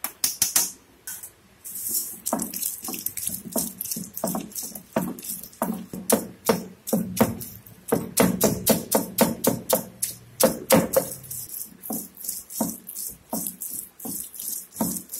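Stone roller (kuzhavi) rocked back and forth on a flat grinding stone (ammi kal), crushing shallots into wet spice paste: repeated stone-on-stone knocks and gritty scrapes, a few strokes a second. Near the start, shallots tipped from a steel plate clatter onto the stone.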